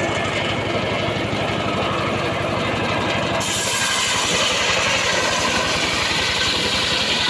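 Saw engine running steadily. About three and a half seconds in, its sound turns abruptly brighter and hissier.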